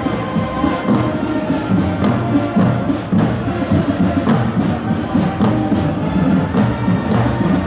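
Marching band of drums and fifes playing, a steady drum beat with a melody over it.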